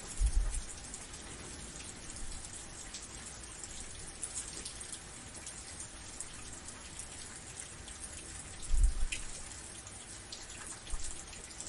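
Steady rain falling, a hiss with the pattering of individual drops. Twice a brief low thump stands out, once at the start and again about nine seconds in.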